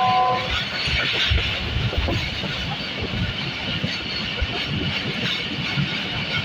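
Passenger train running at speed, heard from a coach window: a steady rumble of wheels on track with irregular knocks and rushing air. A train horn blast cuts off about half a second in.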